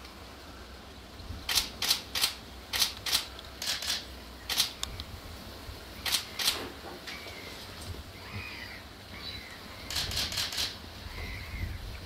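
Camera shutter clicks, about a dozen in irregular singles and pairs, then a quick burst of about five near the end.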